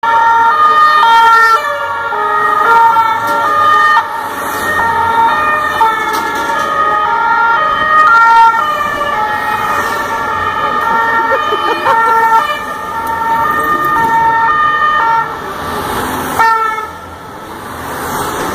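Two-tone French emergency sirens ("pin-pon") on a convoy of police vans driving past. Several sirens alternate between two notes at once, each at its own pitch, and they fade out near the end, leaving the engines of the passing vans.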